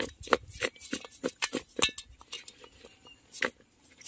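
Small masala-coated fish being shaken and tossed in a metal bowl: a quick, irregular run of wet slaps and taps of the fish against the metal, several a second.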